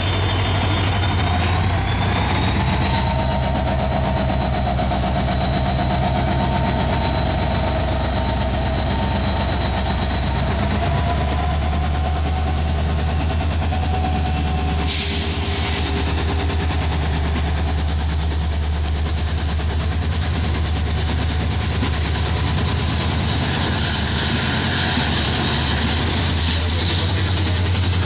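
WDP4 diesel locomotive's EMD two-stroke engine working under power as the train pulls away from the platform: a steady deep engine hum with a high whine that steps up in pitch several times as the throttle is opened.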